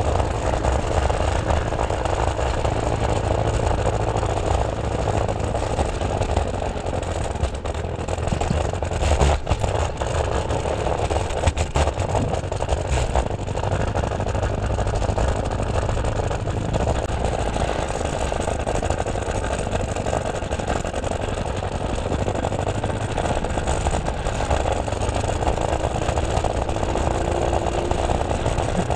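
Ride on an electric scooter: steady wind rushing over the microphone with the rumble of small wheels rolling on pavement, and a few sharp knocks from bumps around ten seconds in.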